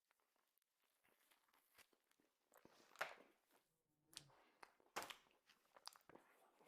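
Quiet eating sounds: scattered sharp clicks and short crunches of chewing, the loudest about three and five seconds in.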